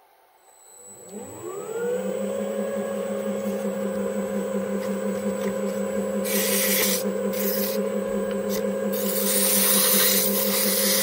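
Small DIY lathe starting up: its motor spins up with a rising whine about a second in, then runs at a steady hum. From about six seconds in, sandpaper pressed against the spinning 3D-printed metal case adds a hissing scrape in several strokes.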